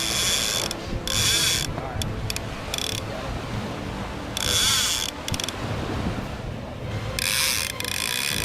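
Shark-fishing reel paying out line on a run, its clicker and drag buzzing in several bursts.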